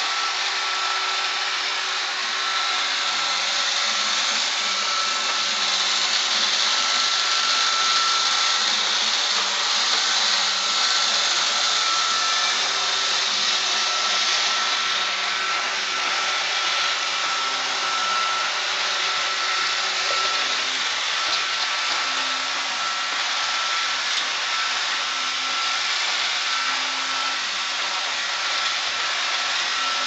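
iRobot Roomba robot vacuum running: a steady whirring hiss from its vacuum motor and brushes, with a thin high whine over it.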